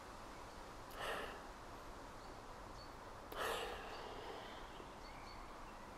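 A man sniffing the aroma of a glass of hazy New England IPA: two audible breaths through the nose, the second louder and a little longer.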